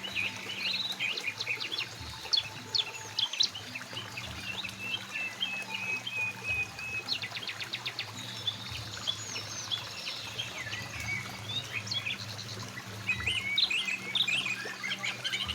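Several birds chirping and calling, with short whistles and a fast trill about seven seconds in, over a faint steady stream flow.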